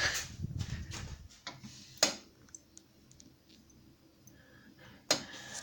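Leaking kitchen tap dripping: two sharp drops about three seconds apart, with fainter ticks between.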